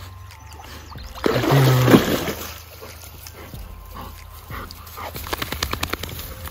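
A dog splashes as it climbs out of the river, loudest about a second in. Near the end comes a rapid patter as it shakes water from its wet coat.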